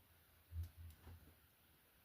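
Near silence, with a few soft, low knocks about half a second to a second in, as carburetor parts are handled and set down on the bench.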